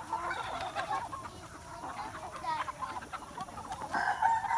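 A flock of free-range hens clucking and calling as they feed at a trough. About four seconds in, a rooster starts a long, loud crow.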